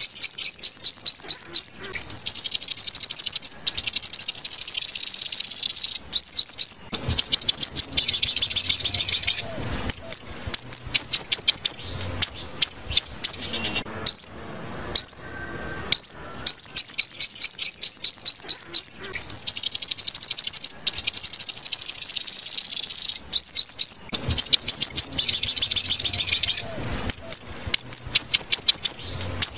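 Sunbird song: rapid series of loud, high-pitched chirps and fast trills, a recorded call sequence that repeats itself about every 14 seconds, looped for use as a loudspeaker lure.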